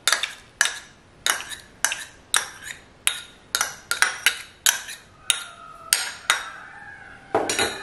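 Spoon and small ceramic bowl clinking in sharp taps, about two a second, as soaked sweet basil seeds are knocked out of the bowl into the drink. A heavier, duller knock comes near the end.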